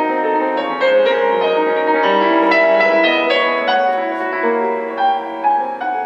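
Classical piano music played from CD through a single-ended CX-345 (245-type) tube amplifier and heard over small loudspeakers in the room. It is a quick run of notes with little deep bass.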